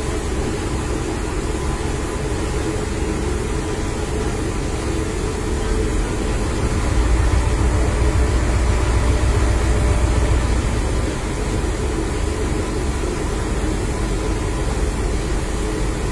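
Isuzu fire truck's engine running steadily, with a deeper, louder stretch from about six seconds in that eases back about five seconds later.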